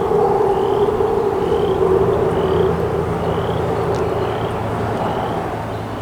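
A frog chorus: a dense, steady din with short rising peeps repeated about twice a second above it.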